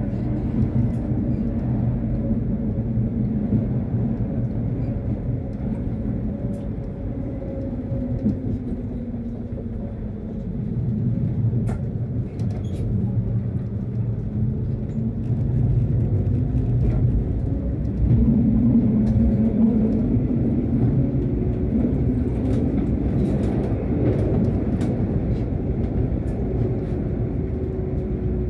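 Tram running along its route: a steady low rumble of wheels on rails, with the hum of the traction motors shifting in pitch. It grows quieter around ten seconds in and louder again from about sixteen seconds.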